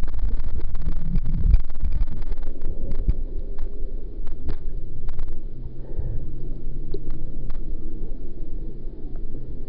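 Lake water sloshing and churning around a waterproof camera held just under and then at the surface, with dense crackling of bubbles for the first two or three seconds. About halfway through, a low steady hum sets in under the water noise for a few seconds.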